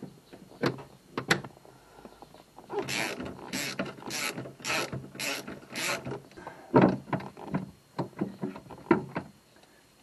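Hand-tool work on a Pontiac Fiero's centre console and gear-shift mechanism during disassembly: a few sharp clicks, then six rhythmic rasping strokes about half a second apart, then a loud knock and more scattered clicks and taps.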